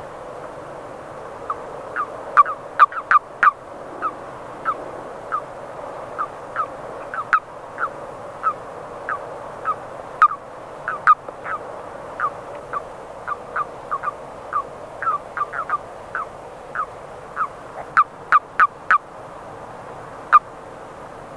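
Common toads (Bufo bufo) calling at a breeding pond: males croaking in short, sharp notes, about one or two a second, over a steady murmur of more distant calls. The croaks bunch together and grow louder about two to three seconds in and again near the end.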